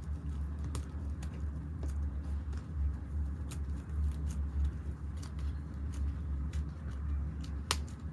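Slime being mixed and squished by hand: scattered small sticky clicks and pops, the sharpest one near the end, over a steady low rumble.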